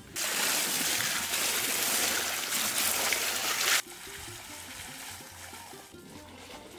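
Water poured from a pot splashes steadily onto eggplants in a large metal basin, then stops abruptly about four seconds in. Quieter sloshing follows as hands wash the eggplants in the water.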